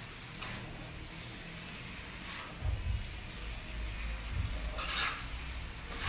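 Noodles and vegetables sizzling in a hot wok as they are stir-fried, with a few scrapes and clinks of the metal utensil against the wok, the clearest about five seconds in.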